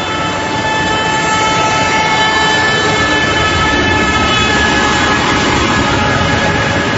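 Loud, steady vehicle noise: a continuous rushing roar with several steady whistling tones over it, which sag slightly in pitch in the second half.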